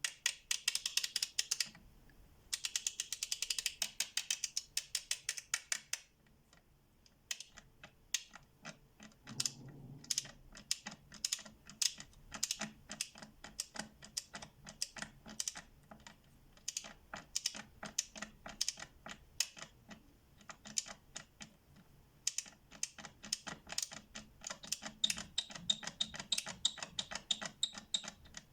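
FELO Ergonic K swivel-head ratchet clicking as its pawl runs over the gear teeth. Two fast runs of dense clicks come in the first six seconds, then slower separate clicks at a few a second, growing denser again near the end.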